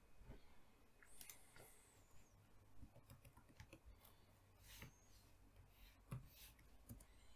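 Faint, scattered clicks of a computer keyboard being typed on.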